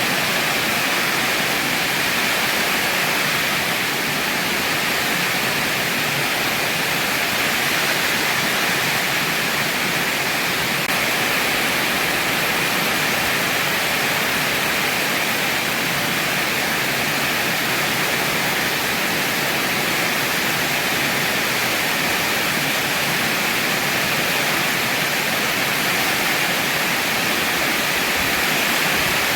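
Heavy rain falling steadily, an even hiss that does not let up, with no thunder.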